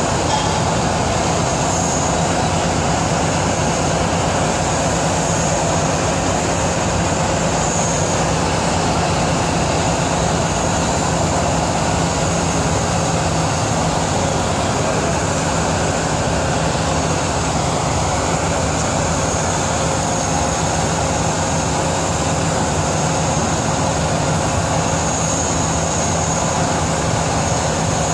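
Steady mechanical rumble with a constant low hum, unchanging throughout.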